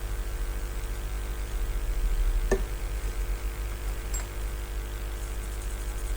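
Steady low electrical hum with a faint hiss, broken by a small sharp click about two and a half seconds in and a fainter tick about four seconds in.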